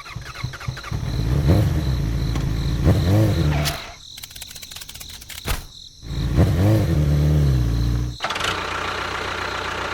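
Engine revving up and down in two spells, each cutting off abruptly, with a steadier lower engine sound between them.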